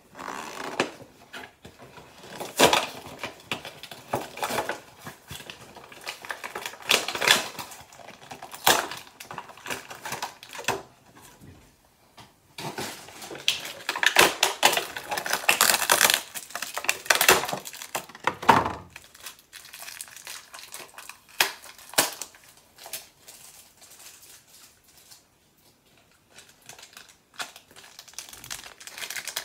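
Cardboard-and-plastic Bakugan toy packaging being torn and crumpled open by hand: irregular bursts of crinkling, tearing and handling clicks, busiest about halfway through.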